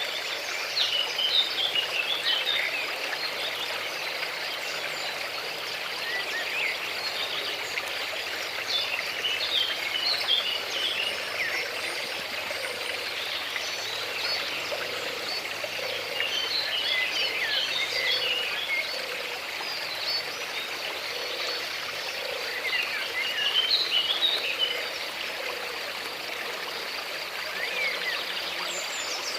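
Steady rush of flowing stream water, with small birds chirping in short flurries every several seconds.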